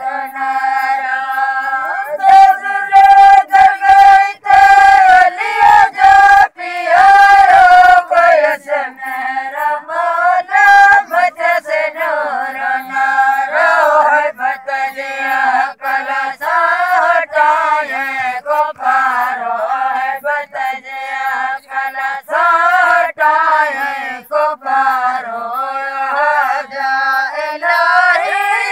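Sindhi devotional song (maulood/naat) sung by several voices in chorus, held notes in the first seconds giving way to wavering, ornamented melodic lines.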